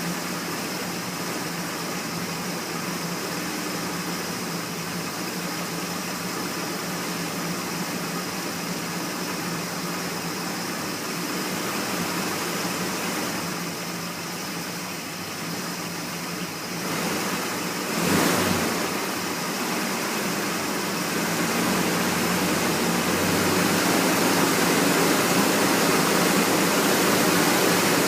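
A 1979 Ford F-150's 400 V8 running at a steady idle. There is a single sharp bang about two-thirds of the way through, and the sound grows somewhat louder over the last few seconds.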